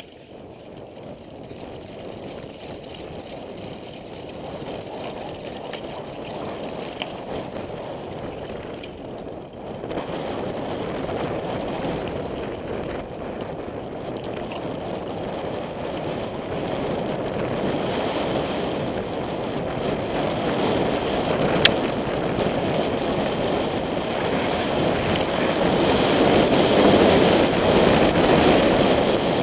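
Wind rushing over a helmet-mounted camera's microphone together with mountain bike tyres rolling over a dirt trail, growing louder as the bike picks up speed toward the end. A single sharp click about two-thirds of the way through.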